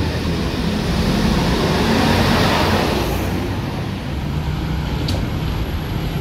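Transjakarta city bus running close by at the platform, its engine hum under a rush of noise that swells and fades about two and a half seconds in. Steady engine and road traffic hum follows.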